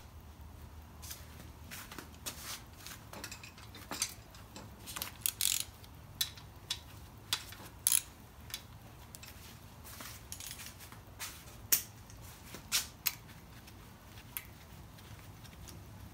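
Scattered, irregular metallic clinks and taps of hand tools and parts being handled while working on a Ford 5.0L small-block engine block, over a faint steady low hum.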